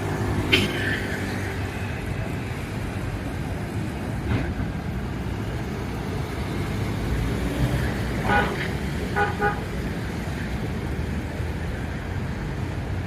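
Steady low rumble of street traffic, with two short car-horn beeps a little past halfway through, about a second apart.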